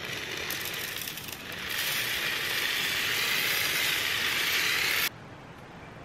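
Small dry granules of natural-humidifier media poured from a bag into a shallow metal tray: a continuous hiss of pouring grains that grows louder about two seconds in and stops abruptly about five seconds in, when the pouring ends.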